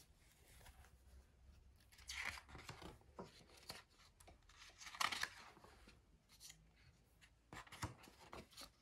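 Pages of a hardcover picture book being turned by hand: three brief, faint paper swishes and rustles, at about two seconds, five seconds and near the end.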